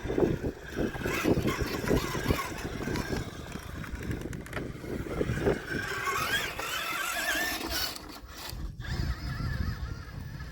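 Small electric motor and gears of an RC rock crawler whining, the pitch wavering up and down with the throttle, loudest about six to eight seconds in, over a low irregular rumble.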